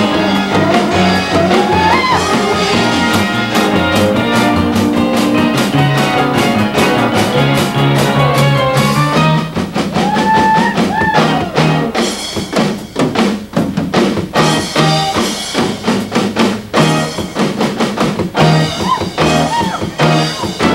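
A live band plays an upbeat rock-and-roll number with electric guitar and drum kit, and the drum beat turns sharper and more prominent about halfway through.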